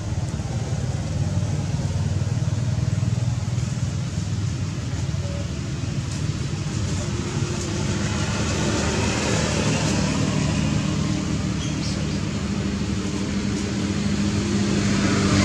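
An engine running steadily, with a higher hum joining about halfway through.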